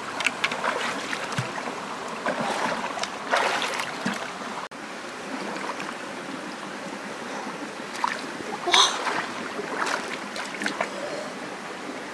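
Flowing water in a stream, a steady rushing, with a few short sharp sounds over it.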